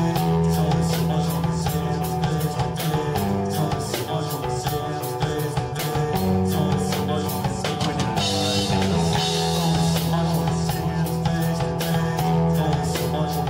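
A rock band playing live: guitar over a drum kit keeping a steady beat, with a low line underneath and a cymbal wash about eight seconds in.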